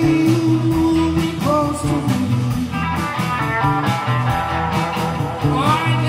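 Live blues band playing: electric guitars over bass guitar and a drum kit, with rising bent notes about a second and a half in and again near the end.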